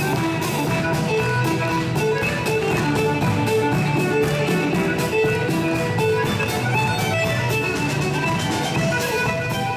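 Live Irish band playing a lively dance tune on fiddle, guitars and drum kit, with a steady quick beat.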